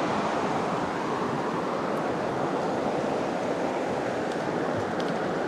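River water rushing steadily over rapids, a constant even roar with no change.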